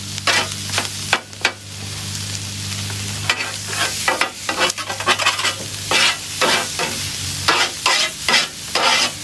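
Pork sausage sizzling on a hot Blackstone flat-top griddle while a metal chopper scrapes and chops it against the steel in repeated sharp strokes, with a short lull a couple of seconds in. A low steady hum sounds underneath for the first few seconds.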